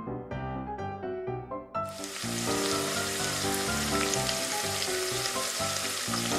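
Beaten egg with minced pork sizzling in a miniature stainless-steel frying pan while it is stirred. The sizzle starts suddenly about two seconds in, over background music with steady piano-like notes.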